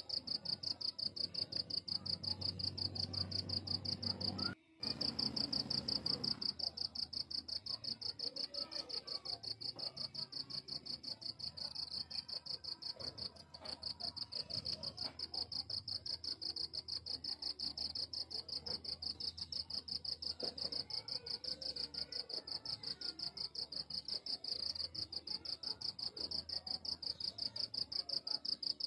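Crickets calling in a steady, high, rapidly pulsing trill that breaks off for a moment just under five seconds in.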